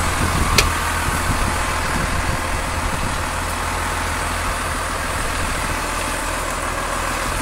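New Holland TS115A tractor's diesel engine running steadily at low revs, with one sharp knock about half a second in.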